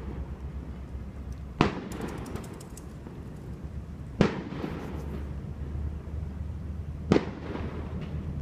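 Fireworks shells bursting with three sharp booms about two and a half to three seconds apart, each trailing off in an echo. A brief crackle follows the first.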